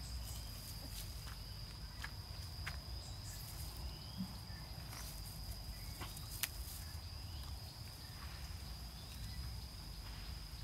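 Faint scuffling, rustling and scattered small clicks of two puppies playing in grass, over a low rumble and a steady high-pitched whine.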